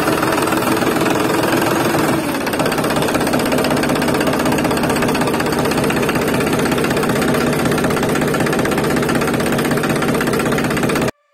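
Tractor engine running steadily with an even knocking beat, cutting off suddenly near the end.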